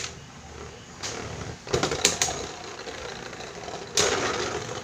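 Two Beyblade spinning tops whirring as they grind across the plastic stadium floor, with a few sharp clacks as they knock together about two seconds in and a louder clash about four seconds in.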